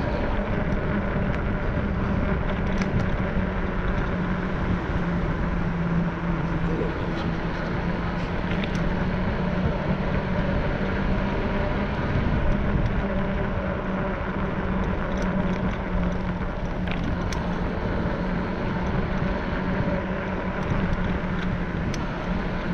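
Steady road and wind noise from travelling along a paved path, with a constant low hum and a few faint ticks.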